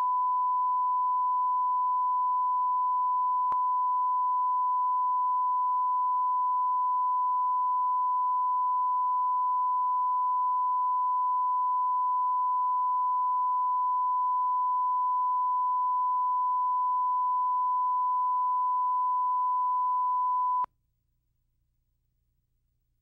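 Steady 1 kHz line-up test tone, the reference tone played with colour bars at the head of a broadcast videotape, one unbroken pitch that cuts off suddenly near the end.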